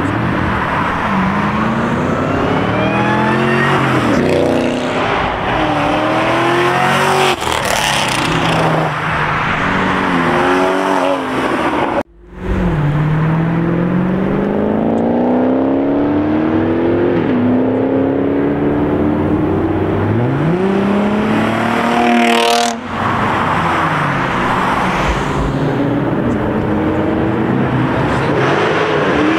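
Drift car's engine revving hard, its pitch climbing and dropping again and again with throttle and gear changes. The sound breaks off for a moment about twelve seconds in.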